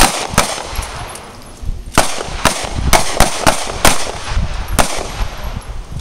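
Several handguns firing from a line of shooters: about a dozen single shots at uneven spacing, some close together, with a lull of about a second and a half early in the string.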